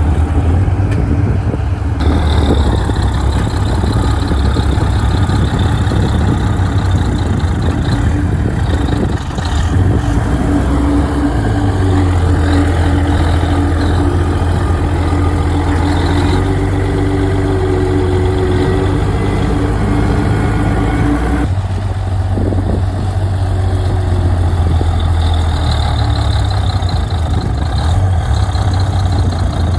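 Heavy earthmoving machine's diesel engine running steadily with a deep, even drone. The tone shifts abruptly twice, about two seconds in and again about two-thirds of the way through.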